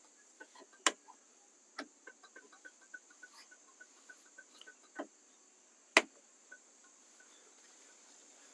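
Steady high-pitched insect chirring, with a few sharp clicks or knocks over it; the loudest come about a second in and about six seconds in.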